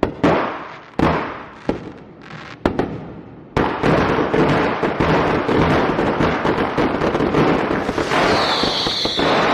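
Fireworks going off: four separate sharp bangs, then, about a third of the way in, a dense unbroken run of crackling bangs. Near the end a high whistle sounds over the crackle, falling slowly in pitch.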